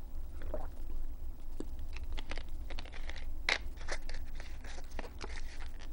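Plastic water bottle crinkling and clicking in the hands while it is drunk from and its cap is screwed back on: scattered small crackles, over a low steady hum.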